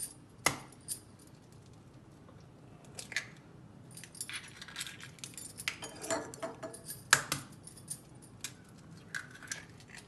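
Eggs being cracked one after another on the rim of a stainless steel bowl: a series of sharp taps and shell cracks a second or more apart, the loudest about 7 seconds in. Bangles on the cook's wrist jingle along with the hand movements.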